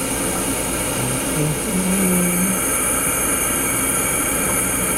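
Flame atomic absorption spectrometer running, its air–acetylene burner and nebulizer air giving a steady, loud hiss, with a brief low hum about two seconds in.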